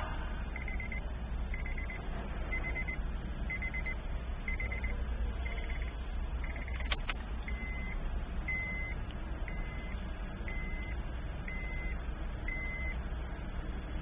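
A high electronic beep repeats about once a second while a car key is being programmed, with a sharp click about seven seconds in; after the click the beeps come as clean single tones. A steady low hum runs underneath.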